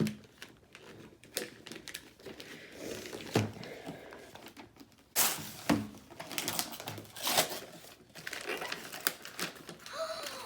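Paper crinkling and tearing with scattered light clicks and knocks as a present is unwrapped and its box opened.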